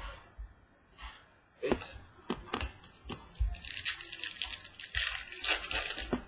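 Trading cards and sleeves handled on a table with a few sharp taps, then a foil card-pack wrapper crinkling and tearing open for the last two and a half seconds or so.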